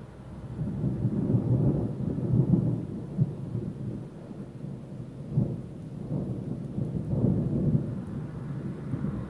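Thunder rolling: a long, deep rumble that builds about half a second in, swells and ebbs over several seconds, with a few sharper cracks within it.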